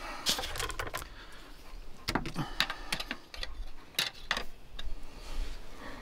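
Irregular light clicks, taps and short rattling scrapes from hard objects being handled.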